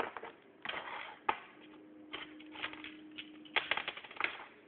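Small plastic toys being handled and set down on a toy set: a run of light clicks and taps, with a denser cluster near the end.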